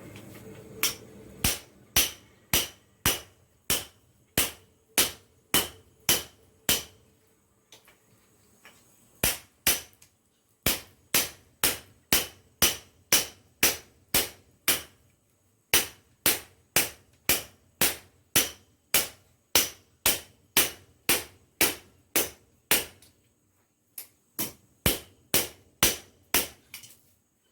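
An old wrench used as a hammer striking hot metal on a makeshift scrap-metal anvil. The blows are steady, about two a second, each a sharp ringing clank, in four runs with short pauses between them.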